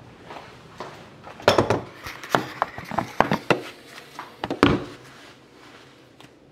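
Handling noise indoors: a series of irregular knocks, clicks and thuds of objects being moved and set down on a hard countertop, loudest about a second and a half in and again near five seconds, then dying away.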